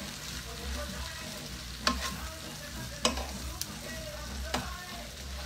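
A metal spoon stirring and scraping a pan of long beans and potatoes in a nonstick skillet over a steady low sizzle of frying, with four sharp knocks of the spoon against the pan.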